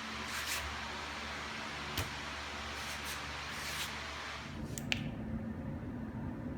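A steady, low mechanical hum under a hiss, with a few sharp clicks; about four and a half seconds in, the hiss drops away and the hum changes.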